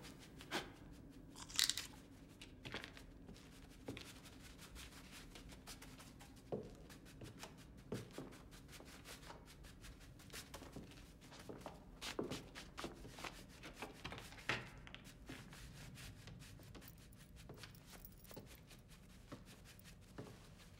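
Faint crackling and crunching: many small, sharp clicks and crunches scattered unevenly, the loudest about one and a half seconds in, over a low steady hum.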